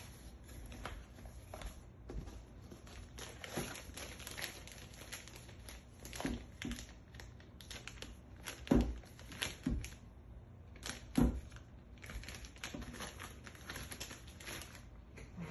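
Packaging being opened and handled: plastic and paper crinkling and rustling, with scattered clicks and a few heavier knocks about two-thirds of the way through, as a drone remote controller is unpacked from its box.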